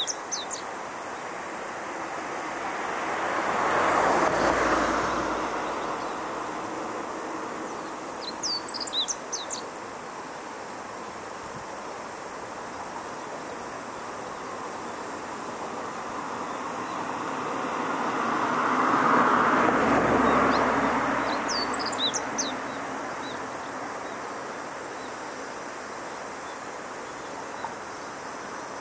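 Meadow bunting singing short, high twittering song phrases three times: at the start, about eight seconds in, and about twenty-two seconds in. Two passing vehicles swell up and fade away, around four and twenty seconds in, louder than the song.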